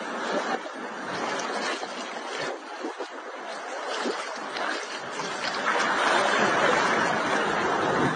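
Shallow sea water sloshing and splashing around a person wading in it, with the noise growing louder about six seconds in.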